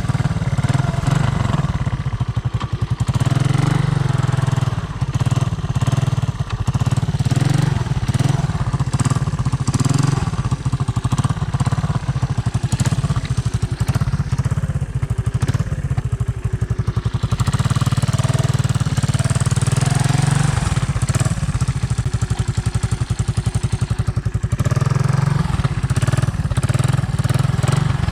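Honda ATC 200M three-wheeler's single-cylinder four-stroke engine running steadily as it is ridden, its note rising and easing with the throttle.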